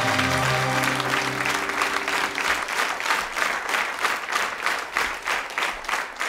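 Studio audience applauding as the band's last held chord fades out over the first couple of seconds. The clapping then falls into an even rhythm of about three claps a second.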